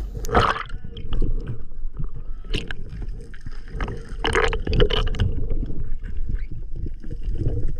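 Underwater sound on a spearfisher's camera: water rushing and gurgling past the housing, with many short clicks and knocks and a few brief bubbly bursts.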